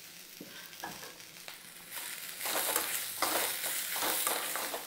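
Chopped onions, shallots and freshly added tomatoes frying in a little oil in a pan, faint at first. From about two seconds in, the mixture is stirred, and the scraping strokes and the sizzle grow louder.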